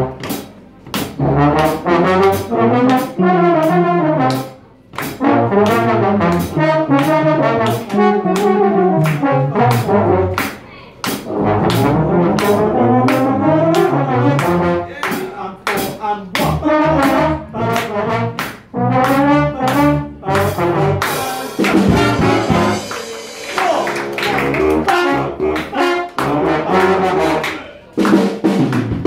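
School jazz big band playing an up-tempo chart: saxophones, trumpets and trombones in short punchy rhythmic figures with brief breaks between phrases. About 21 seconds in the band's sound thickens and brightens.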